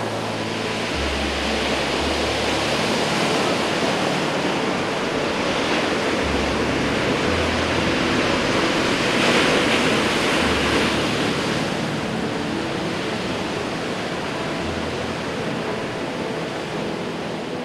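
Heavy storm surf from hurricane swell breaking on a rocky cobble shore: a dense, steady rush of crashing waves and foam that swells to its loudest about halfway through, then eases.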